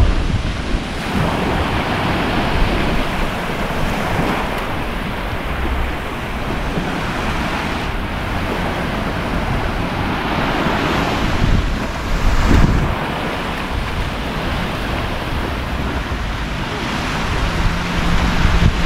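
Small waves washing onto a sandy beach, with wind buffeting the microphone; the rush swells louder at times, most of all about twelve seconds in.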